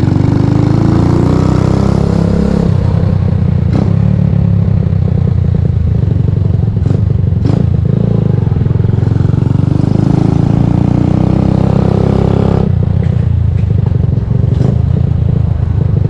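Honda CGL125's single-cylinder four-stroke engine running under way, rising in pitch as it accelerates at the start and again about two-thirds of the way through. A few sharp clacks sound over it.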